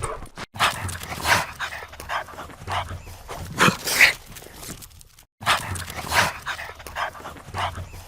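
Dog sound-effect recording: a dog making short noisy sounds, several a second, with a few louder, sharper ones. The same few-second recording plays twice, each time after a brief silent break.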